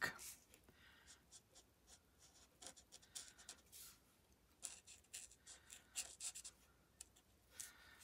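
Faint scratching of a Stampin' Blends alcohol marker tip rubbing over cardstock in short, irregular colouring strokes.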